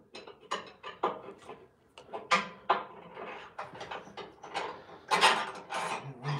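Metal parts being handled and knocked against a mower's steel frame: a quick, irregular series of clinks and knocks, busiest and loudest about five seconds in.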